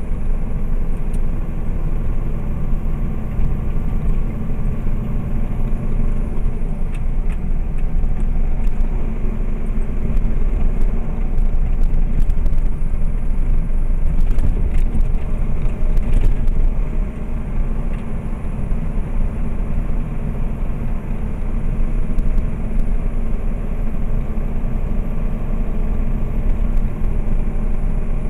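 Steady cab noise of a tractor-trailer cruising down the highway: the diesel engine and tyre and road rumble, low and even throughout, with a few faint clicks or rattles around the middle.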